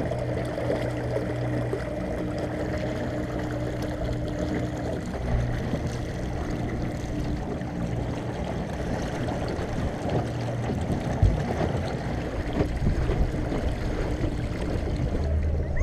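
Small inflatable dinghy under way on an electric trolling motor: water rushing and splashing along the hull, with the motor's steady hum plainest in the first five seconds or so. A single low bump about eleven seconds in.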